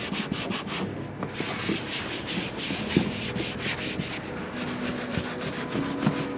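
Foam applicator pad rubbed back and forth over a textured plastic engine-bay cowl panel, a quick run of scrubbing strokes, several a second, as a trim dressing is massaged in.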